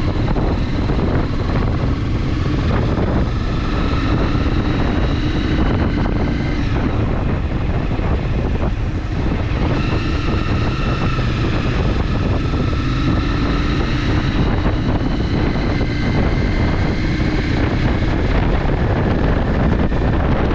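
Honda CBR300R's single-cylinder engine running under way, its pitch climbing and dropping a few times with the revs. Heavy wind buffeting on the microphone.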